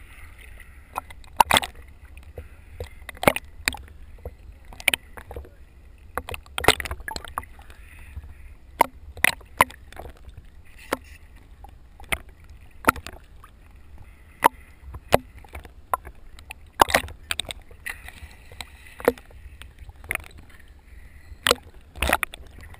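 Small waves slapping against a GoPro's waterproof housing as it bobs at the sea surface. The slaps come as irregular sharp knocks, about one or two a second, over a low rumble of water.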